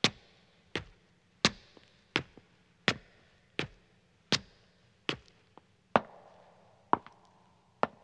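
Footsteps climbing stone stairs: sharp, even footfalls about every three-quarters of a second, each with a short echo. The steps come a little further apart near the end.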